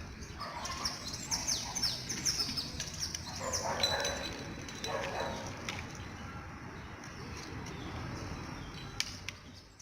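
Birds chirping: a quick series of short, high calls that slide downward in pitch, busiest in the first few seconds, over a faint outdoor background.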